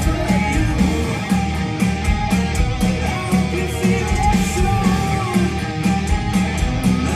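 Live rock band playing loud electric guitars, with a male lead vocal over them.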